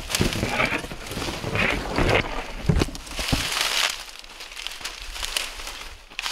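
Dry marsh grass and brush rustling and crackling in bursts as someone pushes through it on foot, with a few dull thumps in the first half. The rustling eases off after about four seconds.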